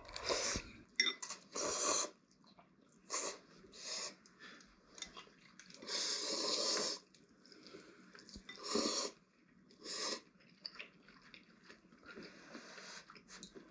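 People slurping instant ramen noodles off chopsticks: a series of short airy slurps with quiet pauses between, the longest about six seconds in.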